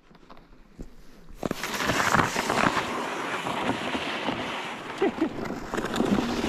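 Ice skate blades scraping and gliding over bare lake ice, with a sled dragged along behind: a dense, crackling hiss full of small clicks that starts about a second and a half in and keeps on.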